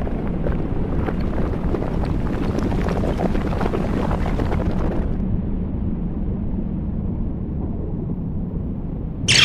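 A steady, low rumbling sound effect with a wind-like hiss over it. About halfway through it turns muffled, leaving only the deep rumble.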